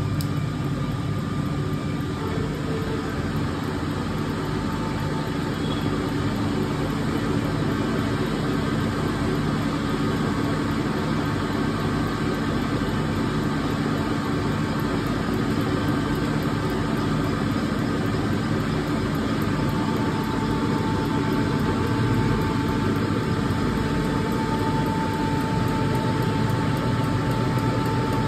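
Diesel injector test bench running steadily with a motor hum, testing the common-rail injector from the car's third cylinder. A higher steady whine joins in about twenty seconds in.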